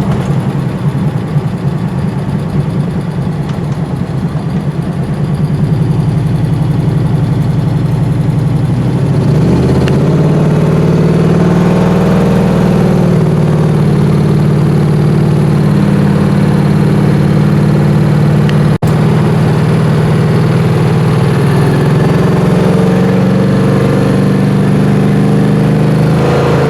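A vehicle engine running steadily, its pitch stepping up about nine seconds in and holding higher.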